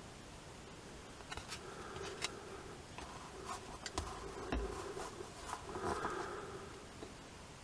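Faint scraping and light clicks of a small metal tool scooping and smearing epoxy adhesive on a piece of card. The sounds start about a second in and come irregularly for a few seconds.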